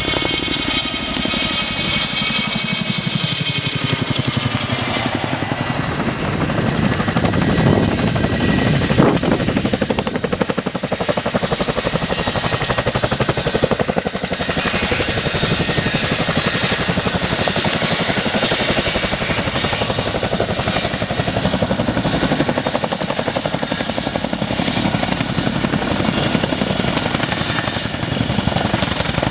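Boeing Chinook tandem-rotor helicopters flying low, their rotors giving a rapid, even blade beat over a steady high turbine whine.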